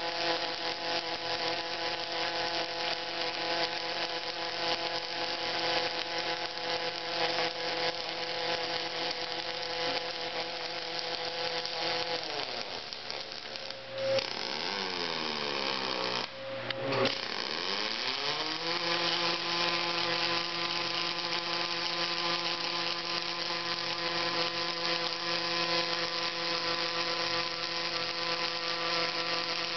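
Robotic hardfacing welding cell running: a steady machine whine over a dense hiss. The whine's pitch sinks and then climbs back about halfway through, as a motor slows and speeds up again.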